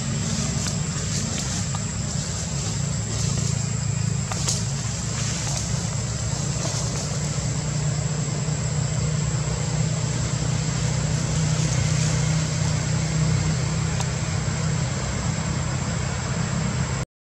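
Steady low rumble with an even hiss over it and a constant thin high-pitched whine, cutting out for a moment near the end.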